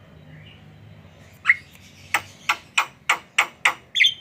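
Javan myna (jalak kebo) calling: a quick series of about eight short, sharp, loud notes, roughly three a second, starting about a second and a half in.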